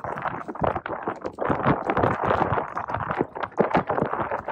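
Strong wind buffeting the microphone: an uneven, gusting rumble with constant irregular thumps.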